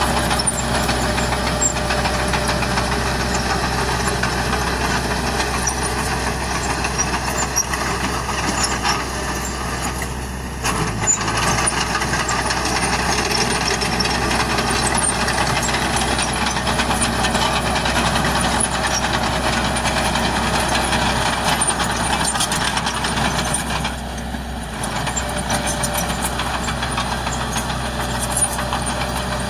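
Heavy diesel earthmoving machinery running steadily under load, with a constant low engine hum and mechanical clatter. The sound eases briefly twice.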